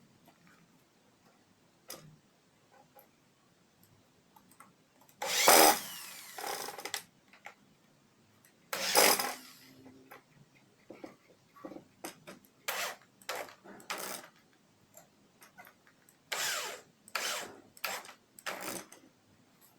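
An electric hand drill spins a circular saw blade in short runs, the motor speeding up and slowing down each time. There are two longer runs about five and nine seconds in, then a string of quick bursts near the end.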